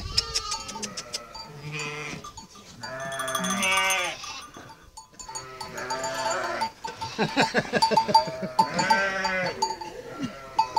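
Sheep bleating several times, with sheep bells clanking among the flock.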